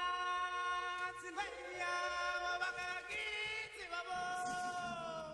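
Music of long, held chant-like notes whose pitch slides to a new note every second or so, fading near the end.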